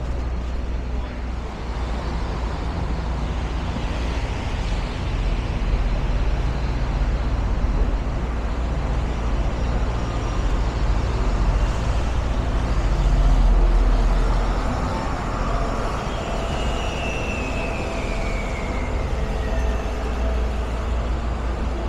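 City street traffic: a steady low rumble of engines and tyres. It swells as a heavy vehicle passes about two-thirds of the way through. Soon after, a faint high-pitched squeal slides downward for a few seconds.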